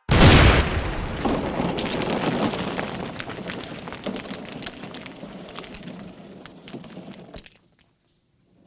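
A heavy crash as a wall is smashed apart by a wrecking ball, followed by rubble clattering and crackling that fades away over about seven seconds, with one short sharp knock near the end.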